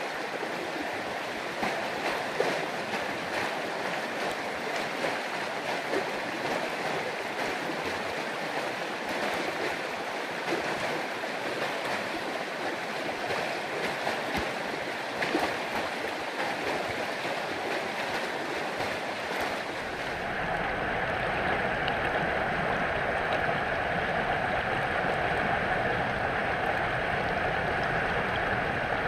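Storm-swollen creek of muddy runoff rushing and churning over rocks in a steady loud rush. About two-thirds of the way through it changes abruptly to a fuller, lower rush, heard with the microphone just above the fast water.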